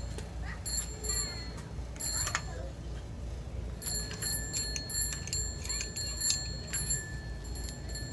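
Irregular sharp metallic clinks and ticks, each with a brief ring: hand tools and engine parts knocking against each other during work on the engine's timing side.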